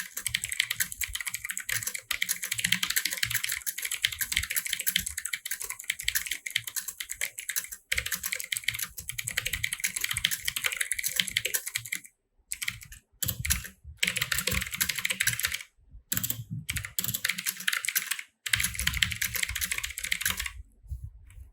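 Fast, continuous touch-typing on a computer keyboard: a dense, rapid run of key clicks with a few short breaks, stopping shortly before the end.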